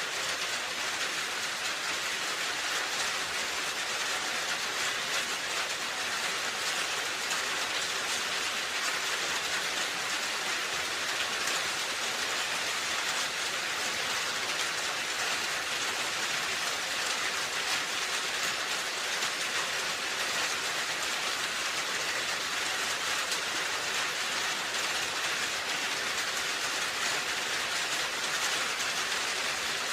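Rain falling steadily on a roof: an even hiss of dense raindrops, with no let-up.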